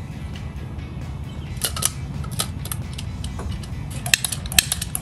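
Caulking gun being loaded with an adhesive cartridge: irregular sharp metal clicks and clacks from the gun's plunger rod and trigger, starting about one and a half seconds in and busiest near the end.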